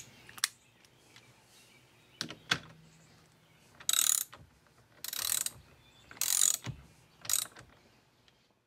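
Hand ratchet with an extension and socket turning the steering wheel's centre nut onto the column. A few single metallic clicks come first, then four short bursts of ratcheting about a second apart.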